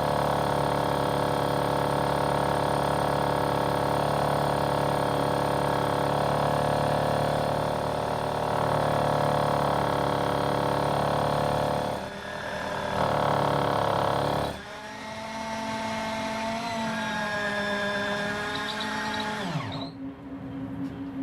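Electric drill boring into concrete, its motor running steadily, with a short break about twelve seconds in. It then runs lighter with a wavering pitch, and winds down with a falling whine near the end, leaving a faint low hum and a few clicks.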